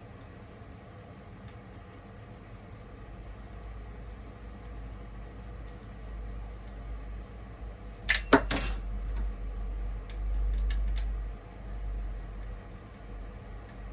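Metal chainsaw parts being handled during assembly. A quick cluster of sharp metallic clinks comes about eight seconds in, then a few lighter clicks and a low handling rumble, over a steady low hum.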